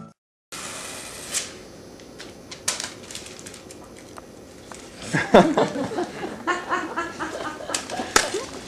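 Stage room tone with a few scattered sharp taps, then, about five seconds in, a performer's wordless vocal sounds, starting with a falling cry, with no words spoken.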